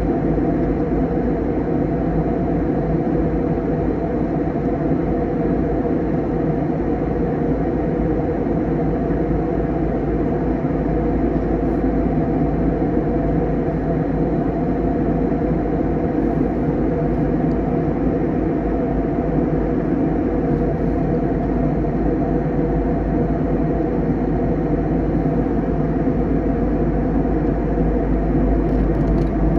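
Steady cabin drone of an Airbus A321 in flight: engine and rushing airflow noise heard from inside the cabin, even and unchanging throughout.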